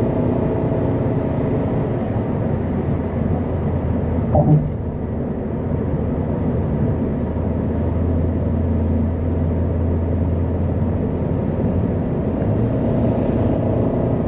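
Steady engine and road noise of a car being driven, with a low hum throughout and a brief louder knock about four and a half seconds in.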